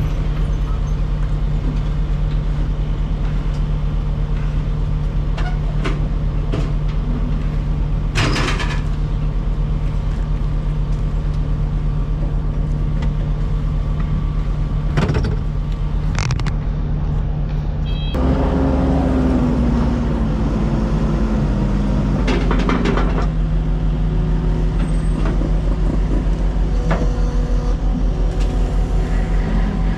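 A motor vehicle's engine running steadily, with a couple of brief knocks; about two-thirds of the way through the engine note changes and a tone slides down over a few seconds.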